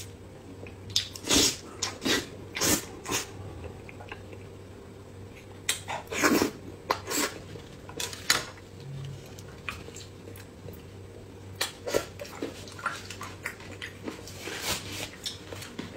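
Close-miked eating: chewing and lip-smacking from a mouthful of sauce-coated food, in irregular wet clicks and smacks.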